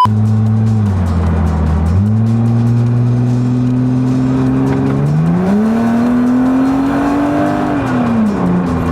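BMW E36's M52B28 2.8-litre inline-six engine pulling under acceleration through an automatic gearbox: the engine note drops about a second in, jumps back up, climbs steadily, rises again midway to a peak and falls away near the end as the throttle eases.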